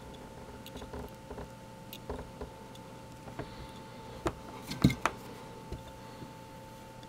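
Small irregular clicks and taps of a soldering iron tip and solder wire against the leads and pads of a small circuit board while two transistors are soldered in, the loudest few a little under five seconds in. A faint steady electrical tone sits underneath.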